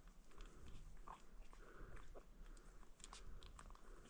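Faint, irregular little clicks and smacks of a newborn puppy mouthing and sucking at a feeding bottle's rubber nipple.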